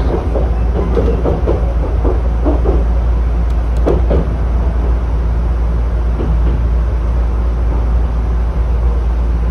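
Chichibu Railway 7500 series electric train running, heard from on board: a steady low rumble of wheels and running gear on continuous welded rail, with no rhythmic clickety-clack of rail joints.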